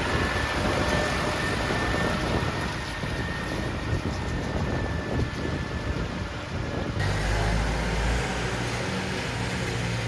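Massey Ferguson 6150 tractor being driven along the road: a steady rushing drive noise with a thin, steady high whine. About seven seconds in, the sound changes suddenly to a lower engine hum.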